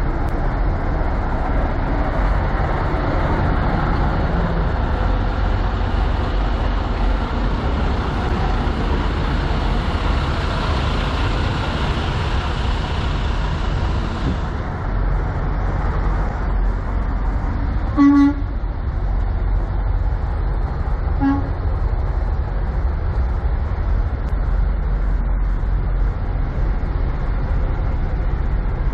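Steady low rumble of idling trucks and traffic in a truck stop lot. A short vehicle horn toot sounds about 18 seconds in, and a fainter one about three seconds later.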